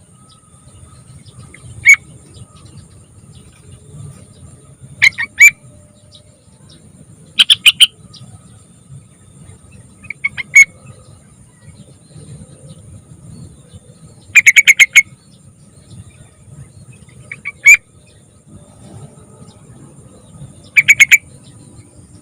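Young yellow-vented bulbul (trucukan) singing: seven short, rapid phrases a few seconds apart, over a faint low steady hum.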